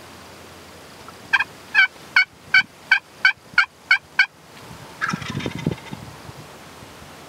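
Turkey yelping: a fast run of about nine loud yelps, roughly three a second. About a second later comes a short rattling turkey gobble.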